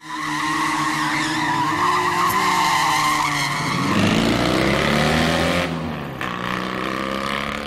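Sound-effect sting of a car engine revving with tyres squealing; the engine pitch dips and climbs again about halfway through, and the sound fades near the end.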